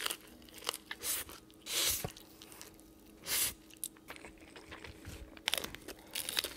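Close-miked eating: chewing and crunching of fried chicken and noodles taken with chopsticks, with scattered small crackles and two short louder bursts about two and three and a half seconds in.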